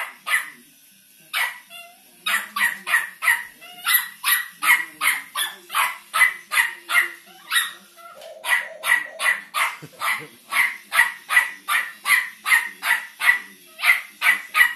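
Small white terrier barking fast and without let-up, about three barks a second, with one short pause about a second in. The barking is excited, aimed at a walking toy robot dog.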